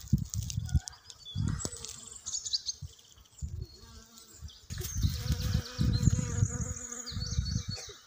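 Bees buzzing around flowering blossoms, with a steady hum in the second half, while birds chirp and trill in the background. Low buffeting on the microphone comes and goes throughout and is the loudest sound.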